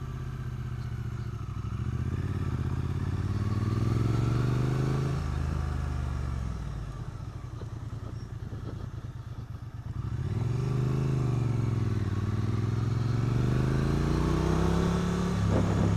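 Triumph Street Twin 900's parallel-twin engine being ridden. The revs climb for the first five seconds, then fall away to a low, uneven off-throttle beat, pick up again from about ten seconds in and climb once more before easing off near the end.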